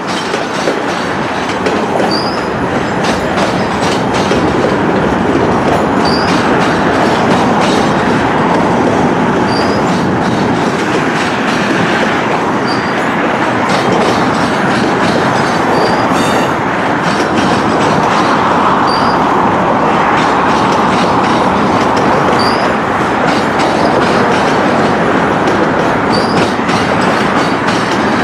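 Freight cars rolling past on steel wheels: a steady loud rumble with the clickety-clack of trucks over rail joints. A brief high wheel squeal recurs about every two seconds.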